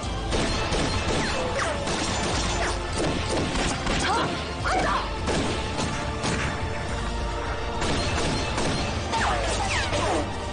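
Film gunfight sound effects: repeated shots and bullet strikes, with several short falling whines of ricochets, over background music.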